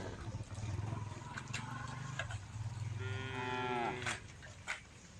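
Cows mooing: a low, steady lowing through the first few seconds, then one full moo about three seconds in that lasts about a second and falls in pitch at its end. A few short clicks sound in between.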